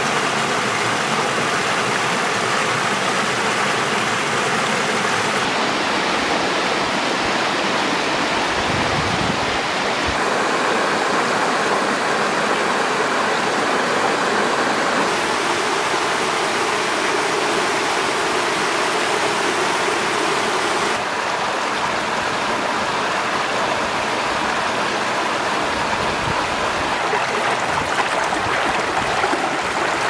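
Creek water cascading over rocks in small waterfalls: a steady rushing and splashing whose tone shifts slightly several times.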